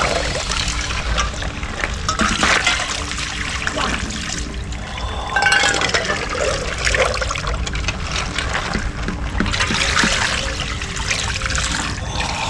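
Icy water scooped with a stainless steel pot from a chest-freezer ice bath and poured over a man's head, again and again, splashing and trickling back into the ice.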